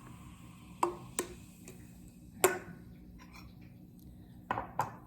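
A drinking glass and bottle being handled on a table: five sharp clinks and knocks, some with a brief ringing tone, the loudest about halfway through.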